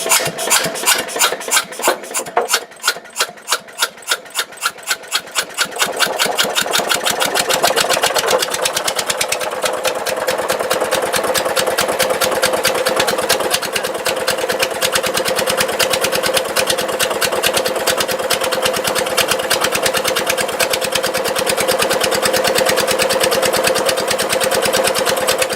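Lister D single-cylinder stationary engine firing, its beats coming faster and faster over the first six seconds, then running fast and steady with a rapid, loud exhaust beat.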